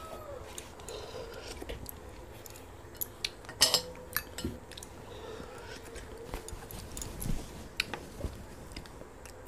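Fingers scraping and tapping on stainless steel bowls, with scattered light clinks; a little over three and a half seconds in, a bowl knocks sharply and rings briefly.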